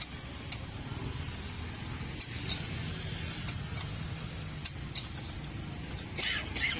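Metal spatula scraping and clinking against a steel wok while greens and meat are stir-fried, with the food sizzling. Sharp clicks of metal on metal come every second or so, a longer scrape near the end, over a steady low rumble.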